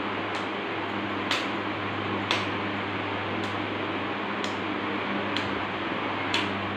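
Steady hum of a room fan, with a sharp click about once a second.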